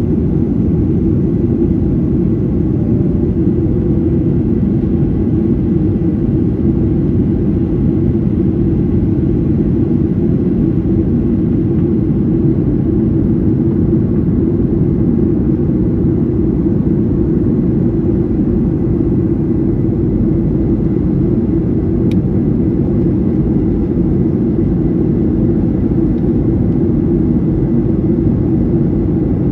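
Steady low rumble inside the cabin of a Boeing 737-800 airliner in flight: its CFM56-7B jet engines and the rush of air, unchanging in level. There is one faint click about 22 seconds in.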